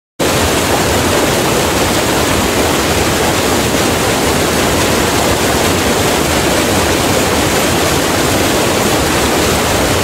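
Steady, dense rush of falling water, starting abruptly and holding an even level with no separate drops or splashes standing out.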